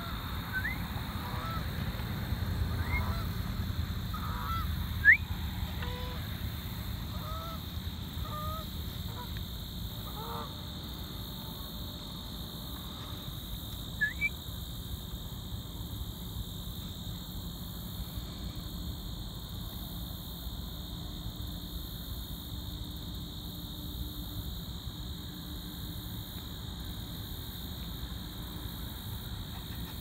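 Geese honking, many short calls over the first ten seconds or so, then only now and then, with a sharper rising call about five seconds in and another near fourteen seconds.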